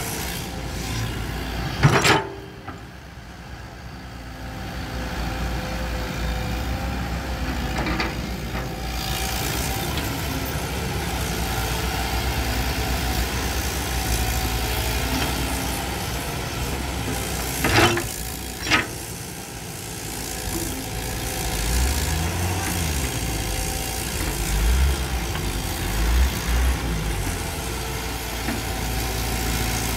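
Diesel engine of a Caterpillar tracked excavator running steadily as it digs and loads soil, with a few sharp knocks, two of them about a second apart, and heavier low throbbing from the engine in the later part.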